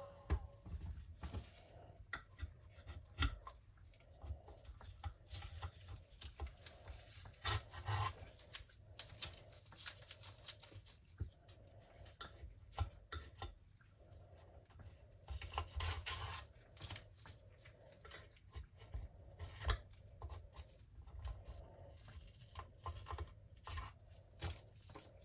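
Faint, scattered rubbing and light tapping of hands and tools working over a resin-coated board as drips are put on its edges.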